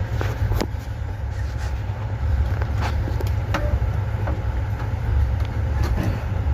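Passenger train running along the track: a steady low rumble with scattered clicks and knocks from the wheels and car.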